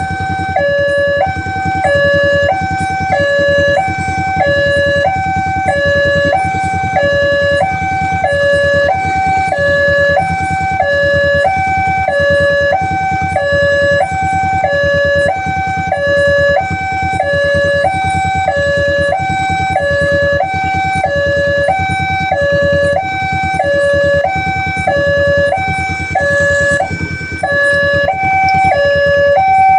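Railway level-crossing warning siren sounding continuously, switching back and forth between two tones with each tone held for about two-thirds of a second. It is the alarm that warns of an approaching train.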